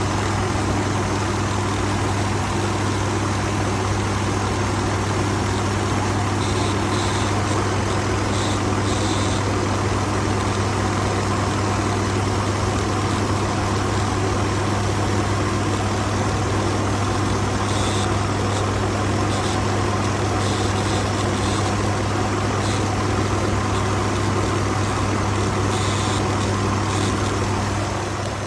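2019 Ford F-150's 5.0 V8 engine idling with a steady low hum and a buzzing sound, on a truck that idles rough and stalls at times; the owner cannot find the cause. Short, higher-pitched bursts come and go every few seconds.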